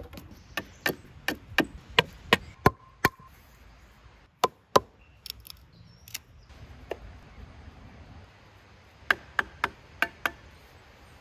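Knife blade chopping into a green wooden stick to carve it to a point: a series of sharp wooden knocks, about three a second at first, then scattered strikes, then a quick run of five near the end.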